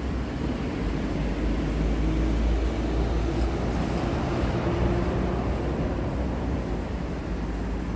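Steady low rumble of vehicle and traffic noise, with no sudden events.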